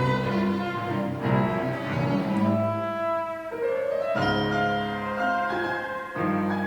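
Chamber quintet playing a classical piece, with sustained pitched notes and a rising pitch slide about three and a half seconds in.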